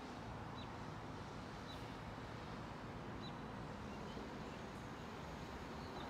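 Outdoor ambience: a steady low rumble of distant city noise, with a small bird giving a few short, high chirps a second or so apart.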